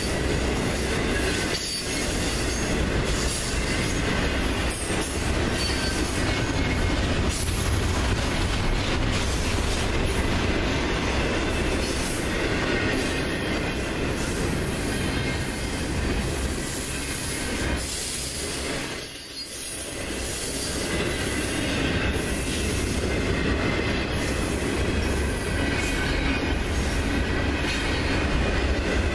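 Double-stack intermodal freight cars rolling past close by: a loud, steady rumble and clatter of steel wheels on the rails, with a light high squeal from the wheels. The noise dips briefly about two-thirds through, then picks up again.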